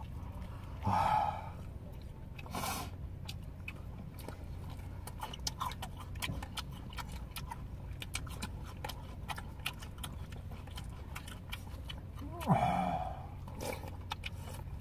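Close-up eating sounds of people having sundae gukbap (Korean blood-sausage soup): chewing, with many small mouth and utensil clicks from chopsticks and a spoon in plastic bowls. Short voice sounds come about a second in and near the end, over a steady low hum.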